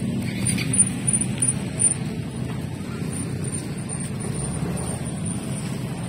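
Steady low outdoor rumble, with a few brief louder bumps in the first two seconds.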